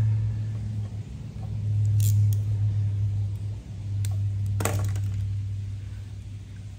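A steady low hum that swells and dips in level, with two short sharp snaps about two seconds and four and a half seconds in: a hand cutter cutting through plastic air-line tubing.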